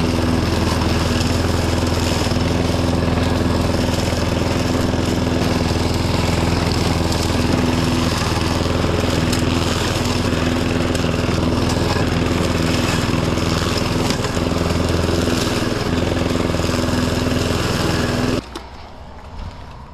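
Riding tractor mower's engine running steadily at an even pitch, then cutting off abruptly near the end.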